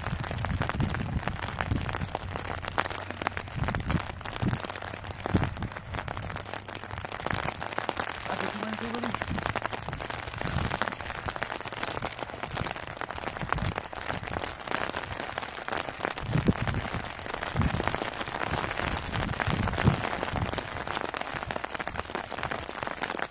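Rain and wind on loose plastic sheeting: a steady crackling patter, with gusts of wind buffeting the microphone as low rumbles now and then.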